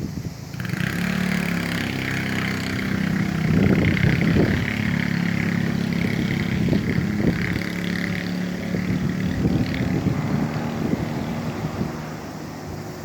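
A motor vehicle's engine passes close by, growing louder over the first few seconds and then slowly fading. A steady high buzz or hiss sets in suddenly about half a second in and stops about ten seconds in.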